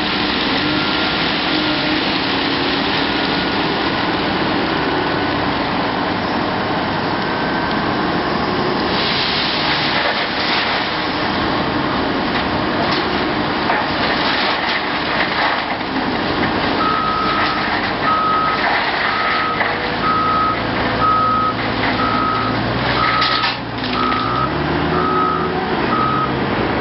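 Caterpillar 980K wheel loader and a Cat 740B articulated hauler running, with gravel clattering as the loader's bucket is emptied into the hauler's body. About two-thirds of the way in, the loader's reversing alarm starts beeping about once a second as it backs away from the truck.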